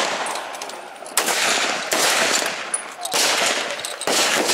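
Rifle shots on an outdoor range: three sharp reports, about 1, 3 and 4 seconds in, each trailing off in a long echo.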